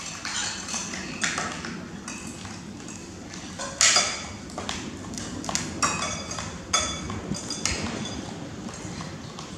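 Metal spoons clinking and scraping against ceramic plates and bowls: a string of sharp, uneven clinks, the loudest about four seconds in, with others near six and seven seconds.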